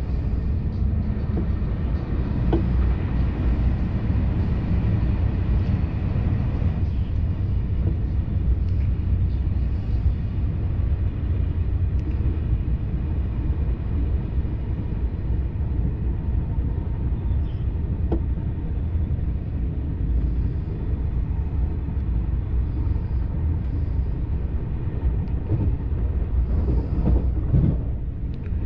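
Steady low rumble of a TGV Duplex high-speed train running on the track, heard from inside a passenger car, with a few sharp clicks. A faint high hum drops out about seven seconds in.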